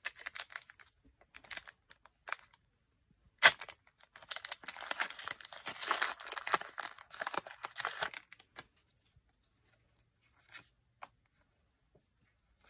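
A Pokémon booster pack's foil wrapper being torn open by hand. There is one sharp rip about three and a half seconds in, then about four seconds of crinkling and tearing, then a few faint clicks as the cards are handled.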